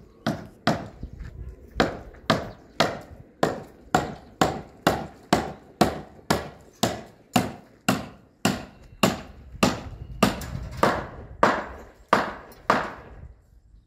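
Hand hammer striking repeatedly at a construction wall top, a steady run of about two sharp blows a second, each with a short ring, stopping near the end.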